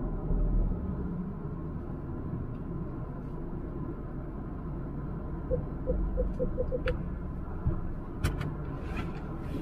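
Low, steady rumble of a Jaguar E-Pace P200 heard from inside the cabin while driving. About five and a half seconds in, a parking-sensor warning beeps about seven times, the beeps coming faster and faster. A few sharp clicks follow near the end.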